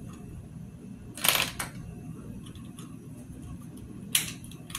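Small plastic doll parts clicking as a tiny baby figure is fitted into a pregnant doll's removable tummy piece: a sharp clatter of clicks about a second in and another single click near the end, with faint handling ticks between.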